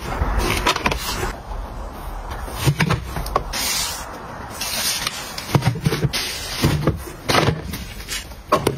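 Cosmetic packaging being handled and dropped into a cardboard box: a run of light knocks as boxes and palettes land, with crinkling of face-mask sachets.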